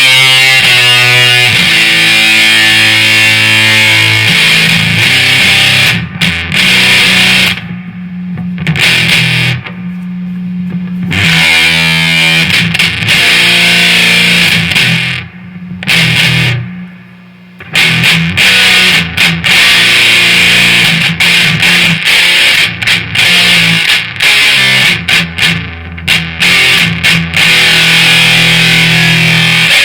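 Heavily distorted electric guitar riffing through a Marshall DSL40C amp at high gain, with chugging low notes and chords. In the pauses between phrases the noise gate pedal cuts the sound off sharply to near silence, with no hiss or hum left ringing.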